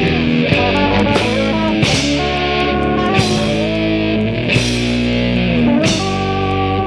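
Rock music with electric guitar, loud and steady, in an instrumental stretch of the song.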